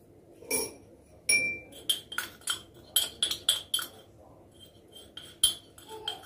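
Small china coffee cup clinking as powdered sugar is measured out with it: a rapid, uneven run of light knocks, each with a short ring.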